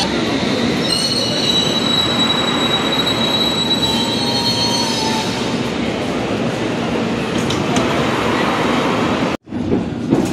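District line Underground train pulling into the station, its wheels and brakes squealing in several high steady tones over the rumble of the carriages. The squeal fades about halfway through, leaving the rumble, and the sound breaks off for an instant near the end.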